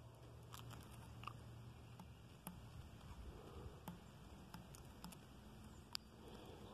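Near silence with a few faint clicks and taps from hands handling a model rocket on its launch pad, the sharpest click about six seconds in.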